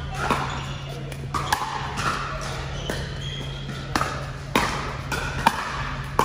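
Pickleball paddles striking the hard plastic ball in a quick volley exchange: a string of sharp pops, roughly one every half second to a second, echoing in a large hall.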